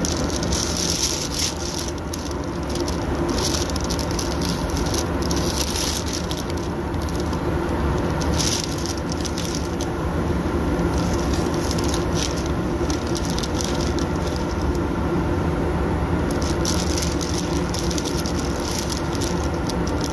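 Automotive paint spray gun hissing in repeated short passes as clearcoat is sprayed over a spot repair, over a steady low hum of machinery.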